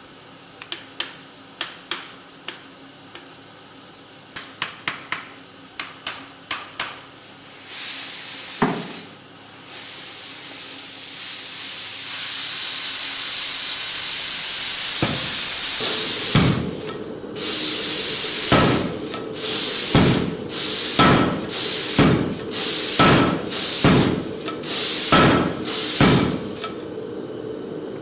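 KA75 power hammer working: a run of sharp knocks, then a long loud hiss, then heavy ram blows about once a second over the machine's steady running hum.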